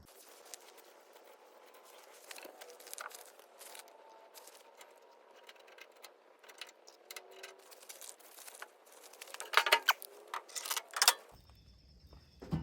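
Light metallic clicks and rattles of hand work on a truck door latch as it is greased and worked, with a run of louder sharp clicks near the end.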